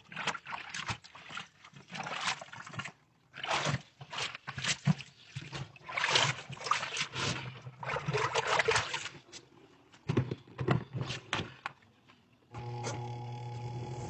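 Water splashing and gurgling in irregular bursts around a hose in a top-loading washing machine's tub. About a second and a half before the end, a steady motor hum starts as the drum spins.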